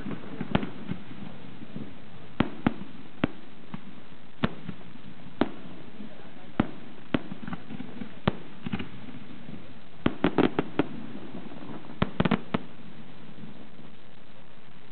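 Aerial firework shells bursting overhead: single sharp bangs at irregular intervals of about a second, then two quick clusters of bangs about ten and twelve seconds in, after which the bangs stop.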